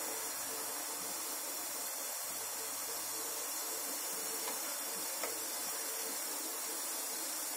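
Steady hiss from an aluminium steamer pot on a lit gas burner. A couple of faint clicks come about halfway through as a plastic bottle cap is set down on the perforated metal steamer tray.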